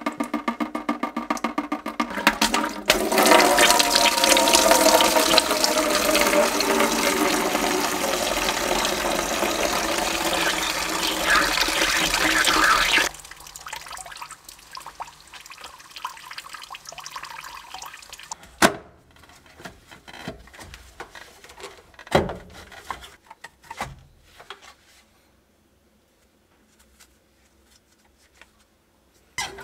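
Green engine coolant pouring out from under an old kei truck as its cooling system is drained, a steady loud gush of liquid splashing down that stops suddenly about thirteen seconds in. Afterwards only faint dripping and a couple of sharp knocks.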